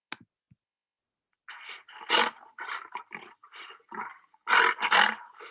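Recording of a lion roaring: a run of short, rough roars, about two a second, starting about a second and a half in.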